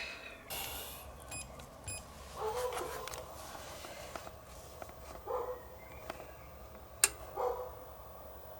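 About four short electronic beeps in quick succession about a second in. Then a dog whimpers in three brief, separate whines, with a single sharp click in between.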